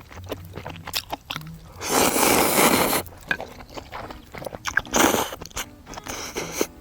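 Close-up eating noises from a bowl of ramyeon: chewing, with small clicks throughout. Two loud noisy bursts come, the first lasting about a second from about two seconds in, the second shorter at about five seconds in.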